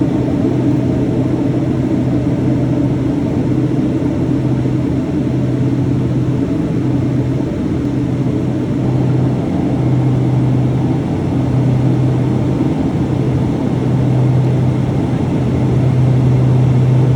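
Piper Cheyenne twin turboprop engines and propellers droning steadily in the cockpit in flight, with a low hum that fades and returns every second or two.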